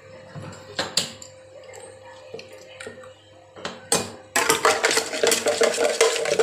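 A steel spoon clinking and scraping against a steel vessel of spiced water for golgappa: a few separate clinks at first, then quick, continuous clattering as it is stirred, from about four seconds in.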